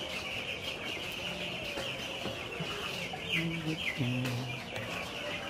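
A large flock of chickens calling: a continuous chorus of many high, short peeping calls, with a few low clucks about three and four seconds in.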